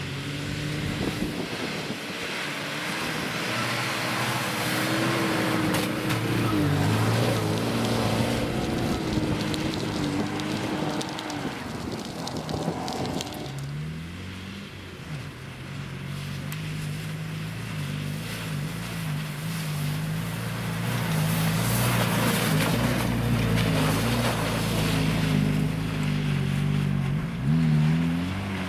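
Off-road SUV engines labouring through snow and mud, the revs rising and falling as the wheels spin: first an Opel Frontera, then, from about 13 s in, a Suzuki Vitara with its engine note lower. Near the end the Vitara revs up sharply.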